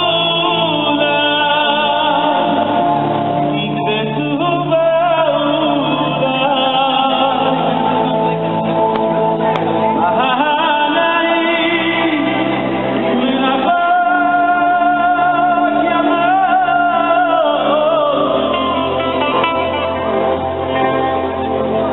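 Live band music with a male lead vocalist singing over amplified instruments and drums, heard through a low-quality recording.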